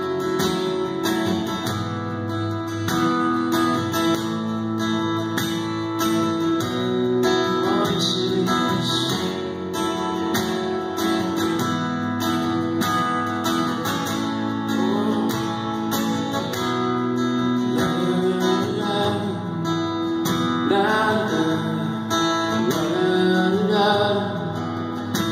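Acoustic guitar strummed steadily, a solo live performance of ringing chords.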